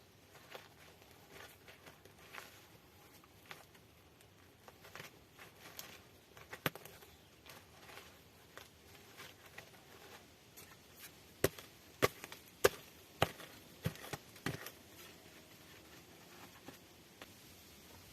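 A series of sharp, irregular knocks on wood, a few spread out and then a quicker cluster of about seven over the following few seconds.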